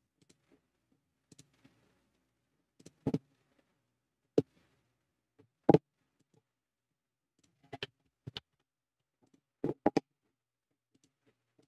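Computer mouse clicking, single clicks and quick pairs spaced irregularly a second or two apart.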